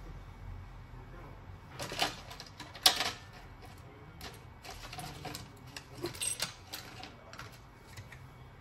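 Light clicks and taps of a phone and a spare back cover being handled and set down on a silicone repair mat, with two louder knocks about two and three seconds in.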